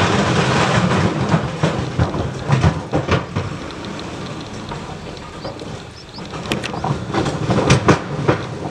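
Wind buffeting the microphone: a rough, steady rumble with irregular sharp knocks, clustered about two to three seconds in and again near the end.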